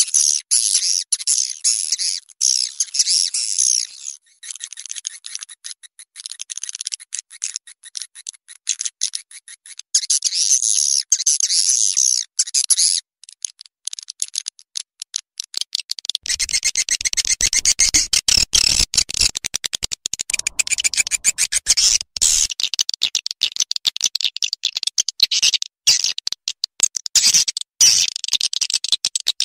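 Mixed swiftlet lure call (a blended 'racikan' track of edible-nest swiftlet calls), used to attract swiftlets to a bird house. Rapid, high-pitched chirping and twittering, broken by brief gaps. About halfway through the mix grows fuller, with a deeper layer and many sharp clicks.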